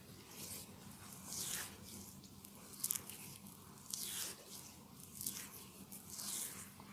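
Skin being rubbed in a facial: about six soft swishing strokes, roughly one a second, the one about three seconds in the loudest and slightly crackly.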